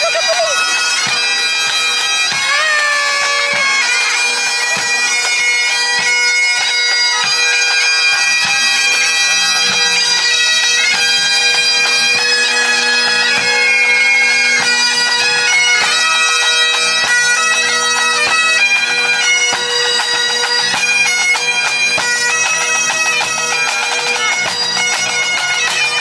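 Bagpipes playing a tune over their steady drone.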